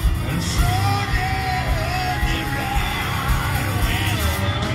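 Live blues band playing at full volume, with electric piano, electric guitars and drums under a steady beat. A long lead line is held high over the band, then wavers and bends down near the end.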